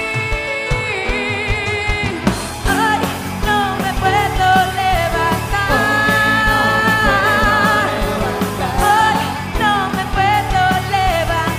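Pop music: a singer's voice with vibrato over a full band with a steady beat and bass.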